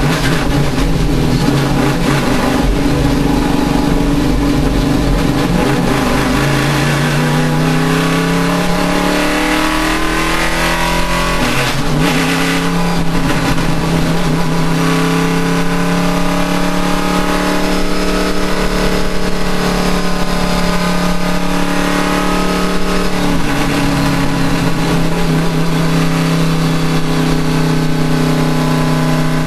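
Race car engine under load, holding a steady note, then climbing in pitch from about a fifth of the way in. The pitch drops sharply at an upshift a little before halfway, rises again more slowly, and drops at another shift about three quarters of the way in.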